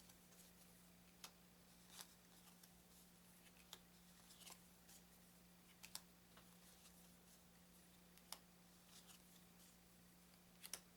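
Near silence broken by faint, scattered clicks and taps of thin paper playing cards being handled and set down, over a steady low electrical hum.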